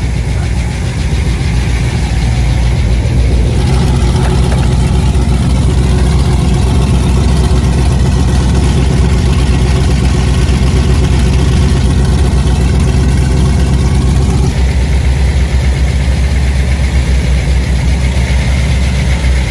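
Twin MerCruiser 500 big-block V8 marine engines idling together, a loud, steady, deep rumble. Their tone steps up a few seconds in and changes again after about fourteen seconds.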